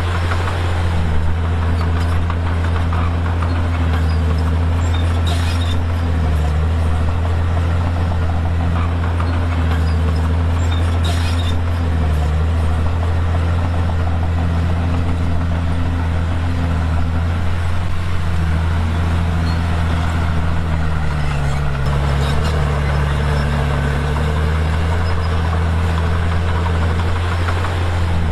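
Komatsu D51PX bulldozer's diesel engine running steadily under working load, its pitch dipping and recovering several times as the load changes. A few short knocks sound over it.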